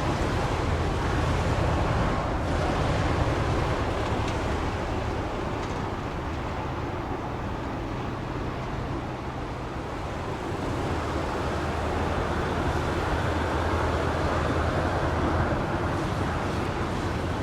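A passing train's engine giving a steady low hum under an even rushing noise; the hum eases off around the middle and swells again about eleven seconds in.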